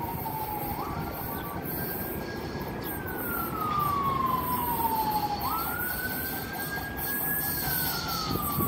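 Siren wailing: a single tone that jumps up quickly, holds for a couple of seconds, then falls slowly, twice, over a low steady background rumble.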